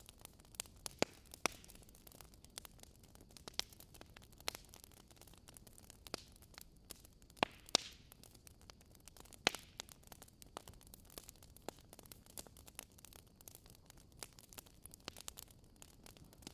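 Wood fire crackling in a fireplace: irregular pops and snaps over a faint steady hiss, a few sharper cracks standing out.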